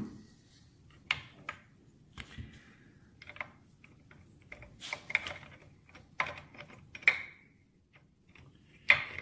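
Triumph gearbox gears, shafts and shift forks being handled and set down on a workbench: a string of irregular metal-on-metal clicks and clinks, some with a short ring.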